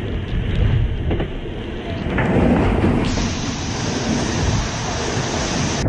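Wind and rushing water around an ocean-racing yacht driving through heavy seas: a deep, steady rumble with a hiss of spray on top, swelling about two seconds in.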